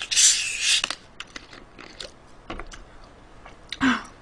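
Plastic Coca-Cola bottle being twisted open: a sharp hiss of escaping carbonation lasting under a second, then scattered small clicks from the cap and bottle, and a short louder noise just before the end.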